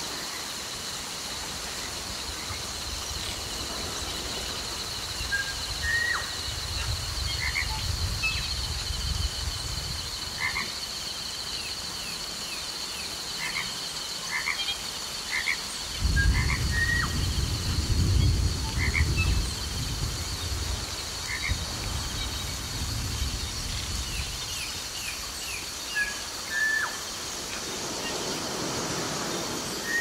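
Layered tropical rainforest ambience: frogs croak in short, repeated calls over a steady high-pitched chorus. A low rush of river water swells about halfway through and fades a few seconds later.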